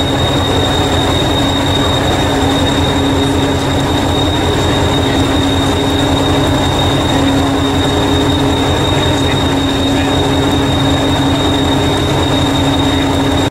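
Diesel engine of the green Hastings diesel-electric multiple unit 1001 idling steadily while it stands at the platform, a low even throb with a steady high whine over it.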